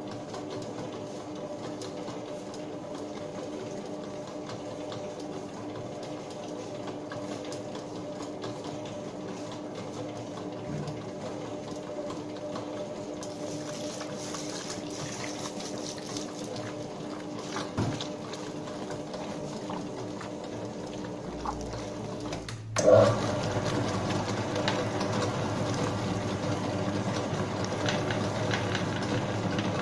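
Bakery spiral dough mixer running, its motor giving a steady hum while the hook churns a 20 kg batch of bread dough that is still dry and crumbly, early in the mix. About three quarters of the way through the sound gets suddenly louder and rougher.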